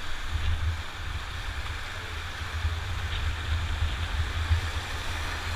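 Whitewater rapids rushing steadily around an inflatable raft, with wind buffeting the microphone in an uneven low rumble.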